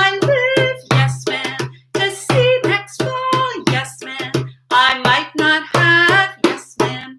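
A woman sings a children's call-and-response song over a steady beat of open-hand strokes on a djembe.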